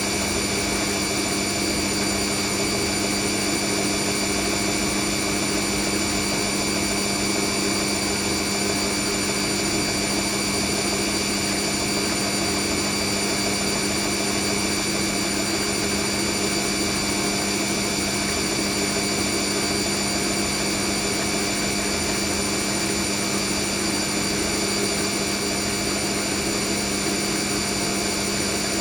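Hoover NeXtra HNL3146 washing machine running at a steady speed with a constant motor whine and no drum reversals.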